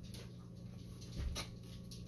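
Gloved hands handling a propeller shaft and bearing carrier in an outboard lower unit gearcase: a few light clicks and one dull knock about a second in, over a steady low hum.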